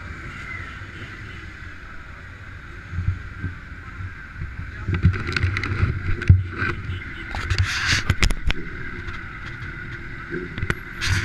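Camera handling noise on a wearable action camera: rubbing and a run of sharp knocks and clicks from about five seconds in, over a steady low rumble.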